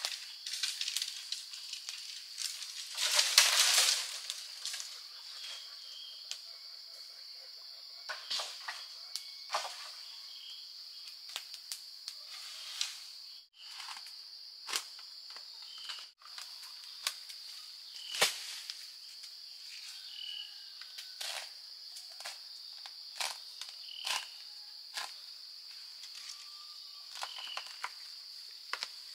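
Steady high-pitched drone of forest insects, with scattered sharp clicks and knocks throughout and a brief louder noisy burst about three seconds in.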